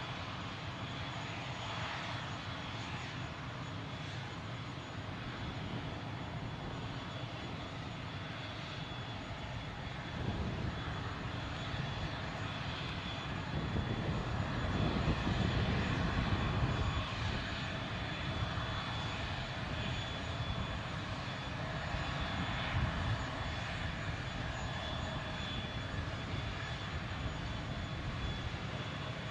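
Airbus A320neo (A320-251N) CFM LEAP-1A turbofans running as the airliner taxis: a steady jet rumble with a thin high whine, swelling louder and deeper for several seconds mid-way.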